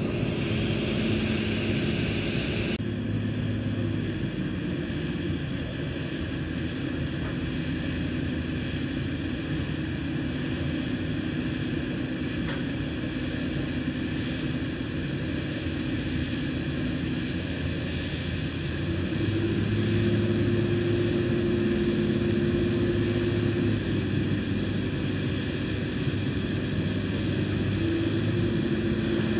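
TIG welding arc burning steadily on stainless steel pipe: a constant electrical hum and hiss with a few thin high tones, growing somewhat louder and deeper about two-thirds of the way in.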